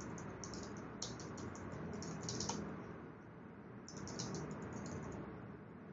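Typing on a computer keyboard: quick, light keystrokes in about four short runs separated by brief pauses, including Enter presses and a short command being typed.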